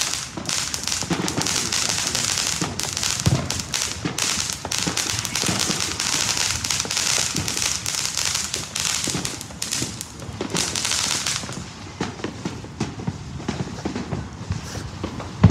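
Fireworks crackling and popping in a dense, rapid stream over a steady hiss. About twelve seconds in the hiss drops away, leaving scattered pops.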